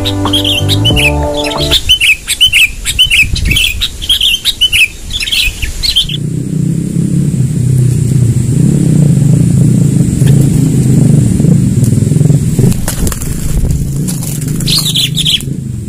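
Sooty-headed bulbul chirping in quick, repeated short notes for about six seconds, with music under the first two seconds. After that a loud, rough rushing noise takes over, and a few more chirps come in near the end.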